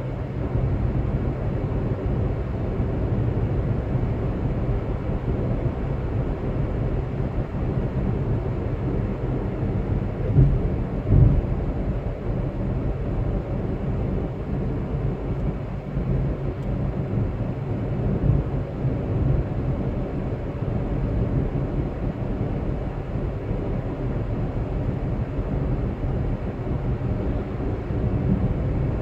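Steady road and engine rumble of a car being driven, with two brief low thumps about ten and eleven seconds in.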